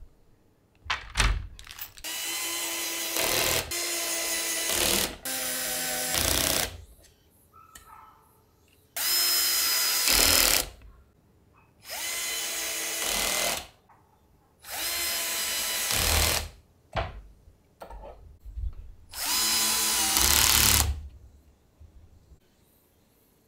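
Cordless drill-driver driving screws into a wooden shelf frame, in about seven short runs of one to two seconds each with its motor whining at a steady pitch. A few light knocks fall in the gaps between runs.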